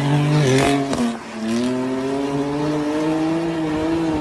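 BMW M car's engine and exhaust under load. The pitch drops briefly about a second in, then climbs slowly and steadily as the car accelerates.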